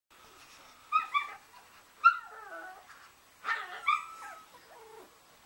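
Four-week-old Yorkshire terrier puppies yipping and whimpering: short, high-pitched yips in small clusters, the loudest about two seconds in, some trailing off in falling whines.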